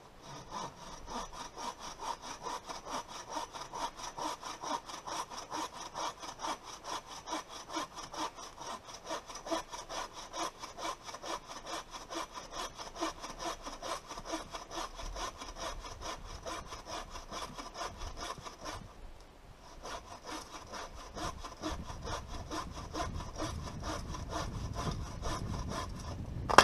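Hand bow saw cutting through a fallen log for firewood, in steady rapid back-and-forth strokes, with a short pause about two-thirds of the way through before the sawing resumes. A sharp knock sounds right at the end.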